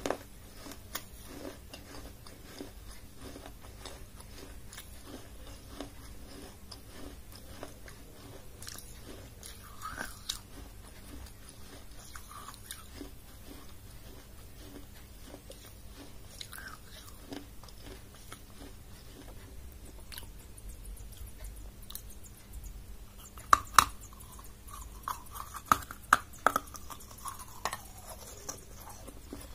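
Close-up chewing of crunchy pieces of a baked clay diya, with small crackling crunches throughout. About three-quarters of the way through come louder, sharp cracks as the rim of a diya is bitten off and crunched.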